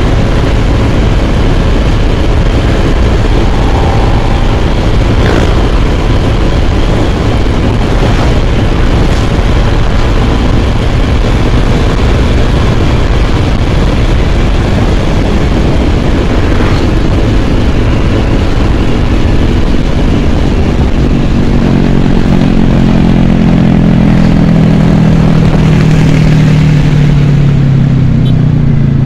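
Wind buffeting the microphone and road noise on a moving Yamaha scooter, with its engine running underneath. In the last several seconds a deeper engine hum grows louder.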